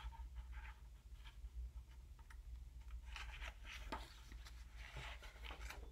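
Faint rustling and soft clicks of a picture book's paper pages being handled and turned, mostly in the second half, over a low steady room hum.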